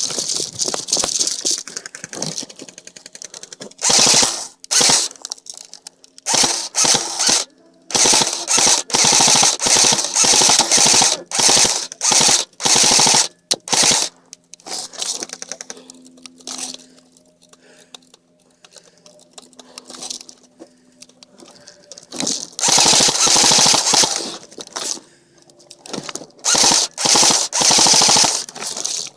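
Airsoft guns firing on full auto: rapid strings of sharp shots in repeated bursts, some short and some running several seconds, the longest in the middle and near the end.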